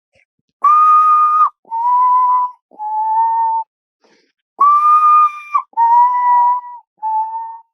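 A man whistling an imitation of a bird's call: three held notes that step down in pitch, the group sounded twice.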